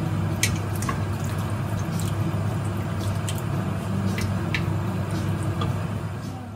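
Wooden spoon stirring a stew of potatoes, fish and broth in a stainless steel pot: wet liquid sloshing with scattered light clicks of the spoon against the pot. A steady low hum runs underneath.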